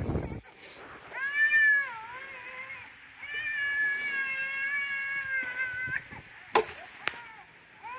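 A young child's high-pitched drawn-out whining cries: a short rising-and-falling one about a second in, then a long held wail of nearly three seconds. A sharp knock sounds shortly after the wail stops.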